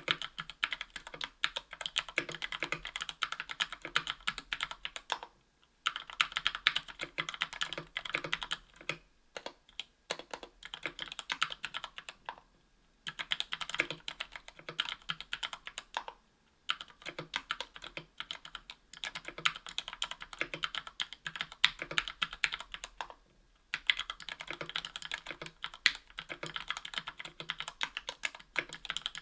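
Fast typing on a 60% mechanical keyboard with lubed Gateron Yellow Ink linear switches, an aluminium case and plate, and PBT keycaps. The keystrokes come in quick runs broken by short pauses every few seconds.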